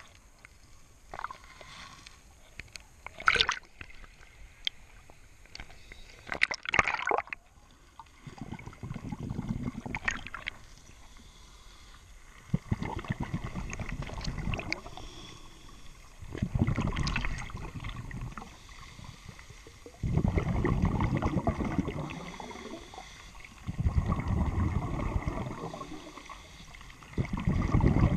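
Underwater sound picked up through the camera housing: sharp clicks and knocks as it goes under, then a burst of bubbling every three to four seconds, each lasting two or three seconds. This is typical of a scuba diver breathing out through a regulator.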